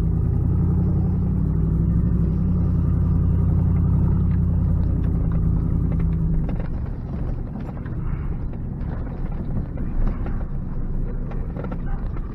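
Truck heard from inside the cab while driving on a dirt woods road. A steady low engine drone fills the first half; then the sound turns rougher, with scattered knocks and rattles from the bumpy track.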